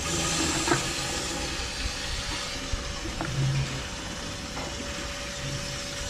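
Water hissing as it runs into a cow's stainless steel drinking trough while she drinks, with a few light knocks. A steady machine hum runs underneath.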